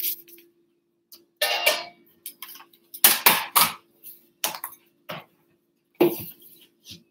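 Handling noise from a recording device being picked up and moved about: a string of short knocks, bumps and rustles, the loudest cluster about three seconds in, over a faint steady hum.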